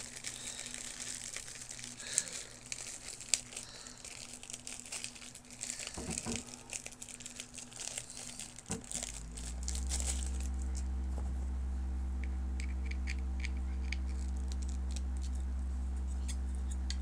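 Clear plastic packaging bag crinkling and rustling as it is unwrapped by hand. About nine seconds in, a steady low hum starts and carries on, with a few faint ticks over it.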